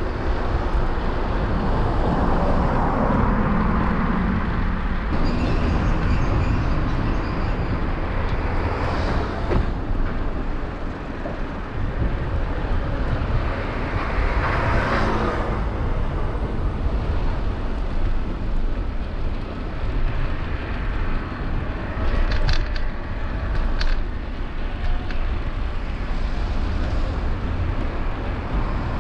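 Street traffic heard from a moving bicycle: cars passing, swelling and fading over a steady low rumble, with a few sharp clicks late on.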